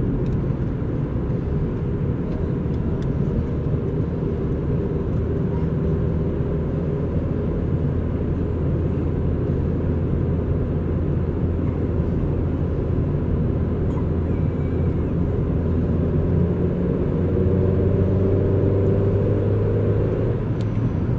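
Motor vehicle engine and road noise, a steady low drone. It gets a little louder and rises in pitch in the last few seconds, as if speeding up.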